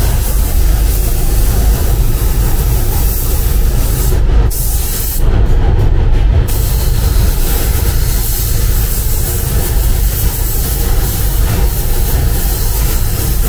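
Spray gun hissing as paint is sprayed, over the steady low rumble of the paint booth's air. The hiss cuts out briefly twice, once a little past four seconds in and again for over a second around the middle, as the trigger is let off.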